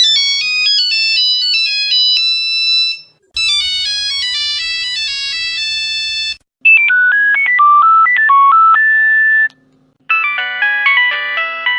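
Nokia mobile phone ringtones played one after another: four short melodies of a few seconds each, split by brief gaps. The first two are high, plain beeping tunes, the third is lower with a steady low hum beneath it, and the fourth is a fuller polyphonic tune with several notes at once.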